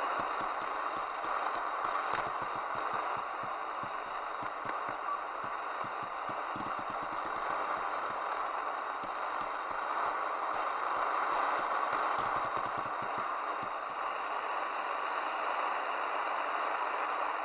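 Midland Alan 8001 CB radio receiver hissing with band noise from its speaker between transmissions, broken by frequent sharp crackling clicks.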